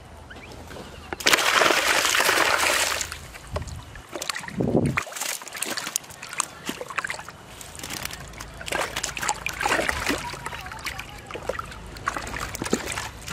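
Water splashing and sloshing, most likely caught fish splashing in a plastic bucket, loudest for about two seconds near the start and then in short irregular splashes. Small wet clicks and rustles from the cast net and fish being handled.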